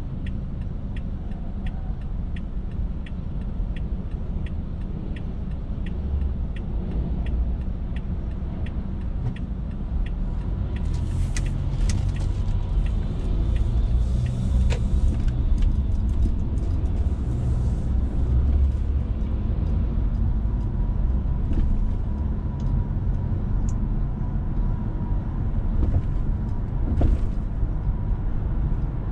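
Low, steady rumble of a car's engine and tyres heard from inside the cabin. A turn signal clicks evenly, about one and a half times a second, for the first ten seconds or so while the car waits to turn. It stops as the car pulls away, and the road noise grows louder.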